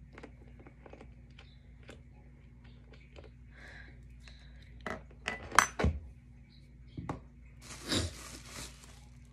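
Small metal clicks and taps from a roller-skate tool working on a wheel's axle nut. About halfway come several sharp metallic clinks, one of them ringing, as the metal tool and nut are put down on the wooden floor. Near the end comes about a second of crackling plastic bubble wrap.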